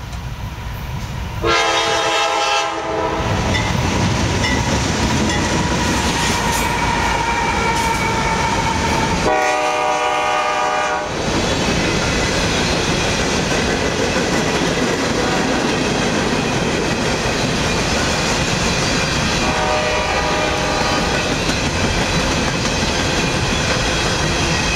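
Freight train's diesel locomotives approaching and passing, sounding the horn three times, the third blast fainter. Between the blasts and after them there is a steady rumble and the clatter of wheels from open-top hopper cars rolling by.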